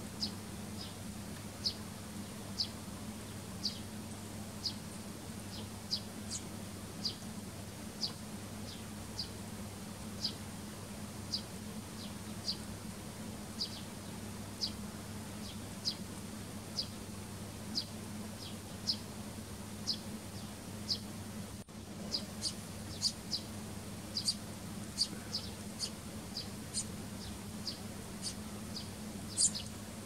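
Eurasian tree sparrows chirping: short, high chirps about one a second, coming faster and thicker from about two-thirds of the way in. A steady low hum runs underneath.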